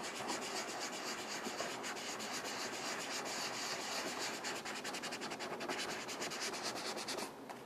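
A sanding pad scuffing the painted body panel of a golf cart: a steady, rapid scratchy rubbing that takes the gloss off the paint, stopping shortly before the end.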